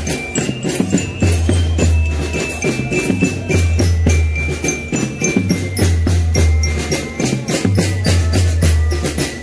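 Drum band playing sholawat music: rapid, evenly spaced drum strikes under a high melody of held notes, with long low bass notes recurring every couple of seconds.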